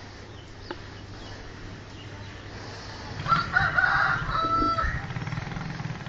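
A rooster crowing once, starting about three seconds in and ending on a held note, over a low background rumble.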